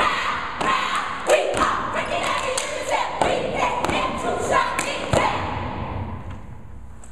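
Step team stepping on a wooden stage: rapid rhythmic foot stomps and hand claps, with the group shouting a chant between the beats. The stomping thins out and gets quieter about five to six seconds in.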